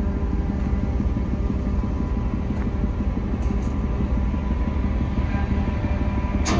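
A large engine running steadily: a continuous low drone with a steady hum, and a short sharp click near the end.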